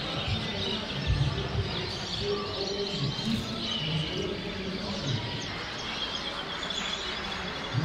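Many caged canaries and finches chirping and twittering at once, short high calls and trills overlapping throughout, over a low uneven rumble with a low thump about a second in.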